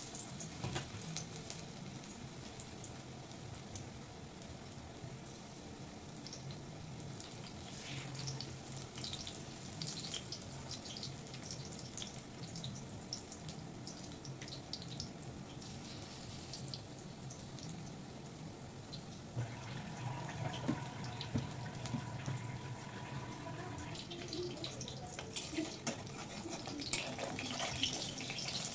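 Batter-coated bok phool (agati flower) fritters sizzling and crackling as they deep-fry in hot oil in a kadai. A metal spatula clinks and scrapes in the pan near the end.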